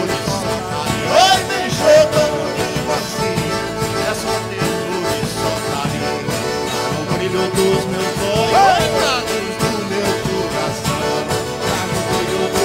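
Live band playing a Brazilian folk tune: plucked violas caipiras over accordion, percussion and bass, at a steady full level.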